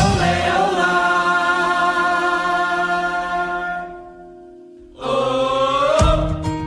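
Song with sung vocals holding a long note with vibrato over instruments; the drums drop out at the start and the music fades almost away about four seconds in. About five seconds in the singing comes back, and the drums return about a second later.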